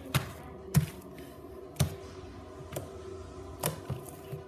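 Green slime being pressed and slapped by hand on a wooden tabletop: sharp, sticky smacks and pops, about five of them roughly a second apart, with smaller ones near the end.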